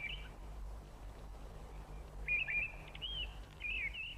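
A garden songbird singing in short phrases of quick up-and-down notes, three brief bursts with gaps between them.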